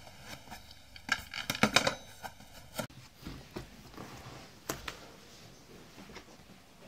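A cluster of sharp clicks and knocks from a telephone handset being handled, then soft footsteps and shuffling in a room with a single sharper tap.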